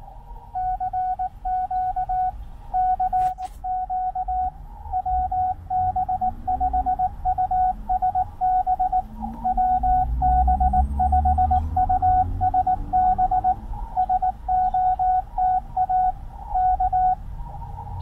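Morse code (CW) received on an Icom IC-705 transceiver in CW mode on 14.062 MHz: a steady mid-pitched beep keyed on and off in dots and dashes over soft receiver hiss. A low rumble runs underneath, rising in pitch about ten seconds in, and there is a single sharp click about three seconds in.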